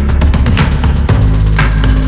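Background music with a steady beat, a hit about once a second over a sustained bass line.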